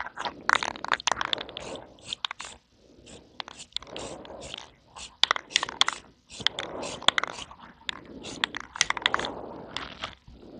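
Krylon clear coat aerosol can in use: short spray passes heard as brief bursts of hiss, broken up by runs of quick rattling clicks as the can is shaken, about five a second.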